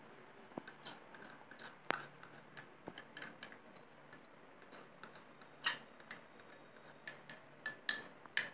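Faint, irregular clicks and light taps from a stainless steel bowl of urad dal batter as the batter is worked and salt is added to it.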